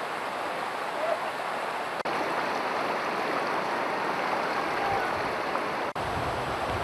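Floodwater rushing in a steady wash of water noise, broken by two very brief dropouts about two and six seconds in.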